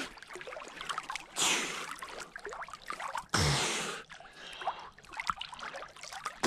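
Water lapping and trickling against a camera held at the surface, with two loud, breathy huffs from a winter swimmer in cold water, about a second and a half in and again about three and a half seconds in.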